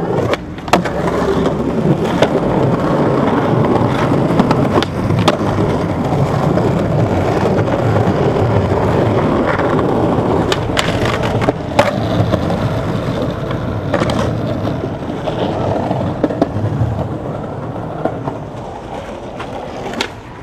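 Skateboard wheels rolling over rough stone and concrete pavement, close up, with several sharp clacks of the board being popped and landing.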